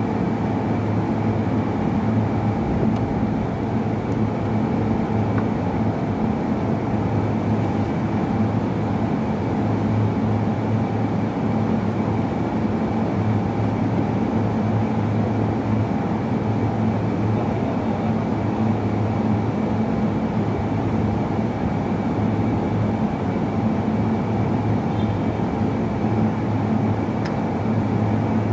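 Steady mechanical hum of a running machine or engine: a constant low drone with a faint high whine, unchanging throughout.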